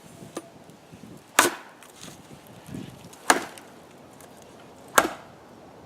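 A machete chopping into a piece of wood: three hard strikes, a little under two seconds apart.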